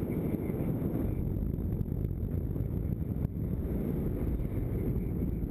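Airflow rushing over the camera microphone of a paraglider in flight: a steady low rumble of wind noise, with one short click a little over three seconds in.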